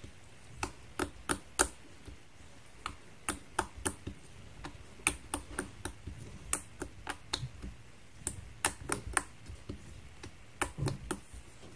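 Fingers poking and squeezing glossy slime, making sharp, irregular clicking pops, about two or three a second.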